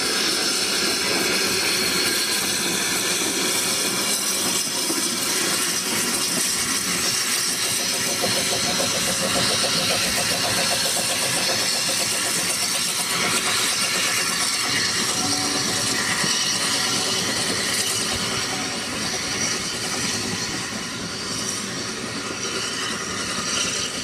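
Small saddle-tank steam locomotive running along the track with a loud, steady hiss of escaping steam.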